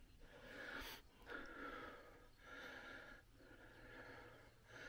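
A man's faint, hard breathing, in and out about once a second: he is out of breath from climbing the fire tower's stairs.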